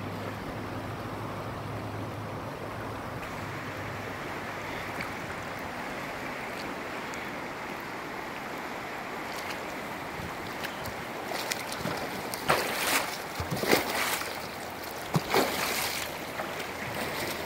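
River water rushing steadily past. In the second half come several sudden splashes and bumps as the inner tube is worked off the rocks it is stuck on.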